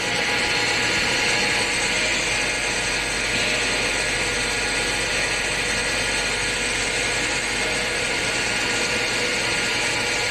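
Metal lathe running, its headstock gears giving a steady, dense mechanical clatter with a whine in it.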